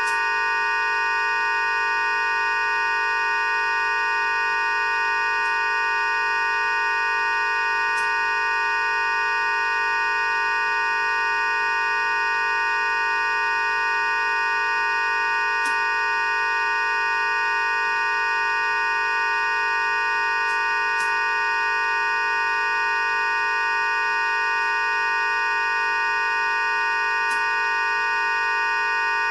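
A steady drone of many held tones sounding together, with no change in pitch or loudness, and a few faint clicks scattered through it.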